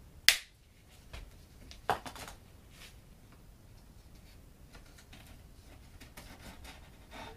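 A sharp knock about a quarter second in and a lighter one about two seconds in, then faint scattered taps and rustles: wood being handled and fitted against a door frame while shimming a pre-hung door.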